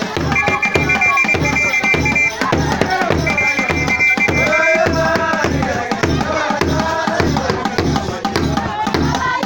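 Rope-tuned skin hand drums beat a steady dance rhythm of about two and a half beats a second while a group sings along. Twice in the first half a whistle gives a long shrill blast.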